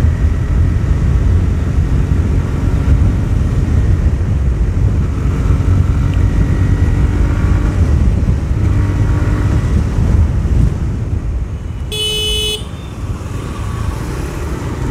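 A TVS Raider 125's single-cylinder engine running as the motorcycle rides at speed, under a heavy low rumble of wind on the microphone. A vehicle horn gives one short beep about twelve seconds in.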